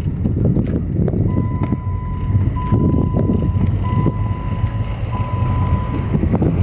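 Low rumble of the diesel Jeep Cherokee KK on the move, with frequent small knocks and bumps. From about a second in, an electronic warning beep at one steady pitch sounds four times, each about a second long.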